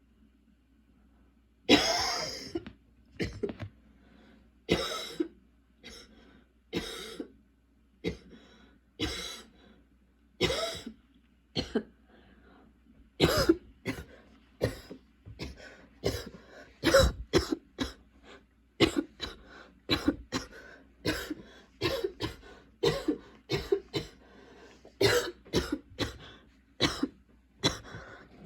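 A girl coughing over and over in a long fit that she cannot stop: at first single coughs about a second apart, then from about halfway coming faster in tight runs of several coughs a second. A persistent cough that her current medication is not controlling.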